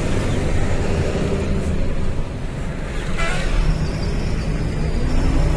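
BharatBenz truck's diesel engine running while driving, heard from inside the cab: a steady low drone with road noise. A brief higher-pitched sound comes about three seconds in.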